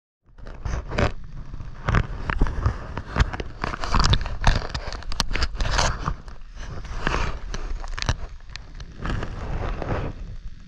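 Water sloshing and splashing against a waterproof action camera held at the sea surface while snorkelling, a low rumbling wash broken by many irregular clicks and knocks.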